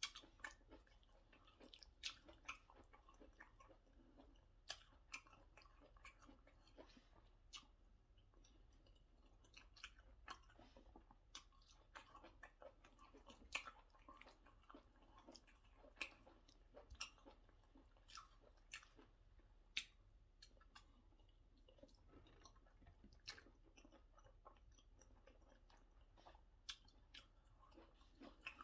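Close-miked eating of white starch and egusi soup: soft, wet chewing with sharp lip and tongue smacks at irregular intervals, several every few seconds.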